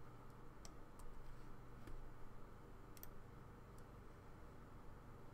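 A few sharp, scattered computer mouse clicks and key presses, with a quick pair about three seconds in, over a faint steady low hum.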